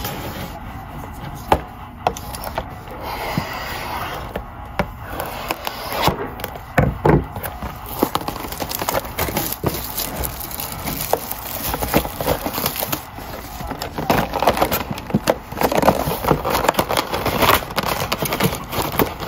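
Trading cards and their clear plastic packaging handled: crinkling plastic, cards shuffled and rubbed against each other, with scattered small clicks and scrapes.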